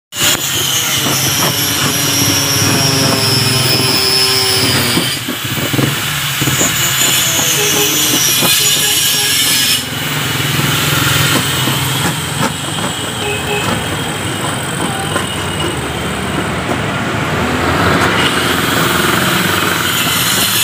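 Steel paint scraper rasping flaking paint off a diamond-plate steel door, a loud continuous scraping with thin high squeals, in stretches that change abruptly about five and ten seconds in.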